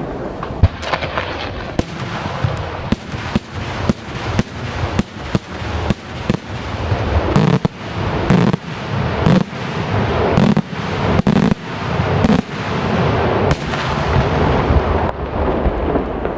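Daytime aerial fireworks: a rapid, irregular string of sharp shell bursts, about one or two a second, over a continuous rolling rumble, with heavier, deeper booms in the middle stretch.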